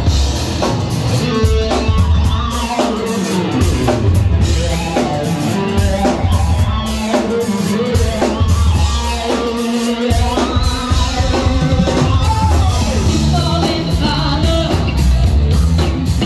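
Live band playing: drum kit, heavy bass and electronic keyboards, loud and steady.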